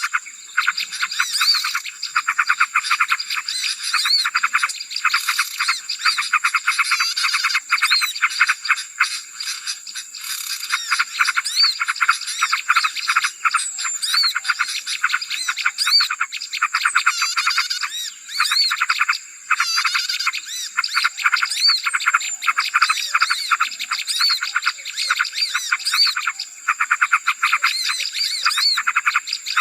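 A dense, noisy chorus of small songbirds chattering and chirping rapidly, the kind of bird-lure (pikat) recording played to draw small birds in, over a steady high-pitched tone.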